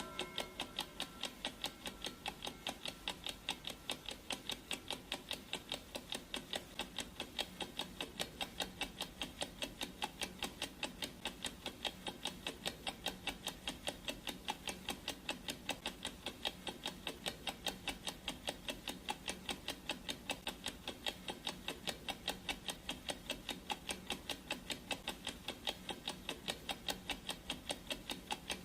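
Clock-ticking sound effect of a countdown timer: a steady, evenly spaced train of sharp, bright ticks.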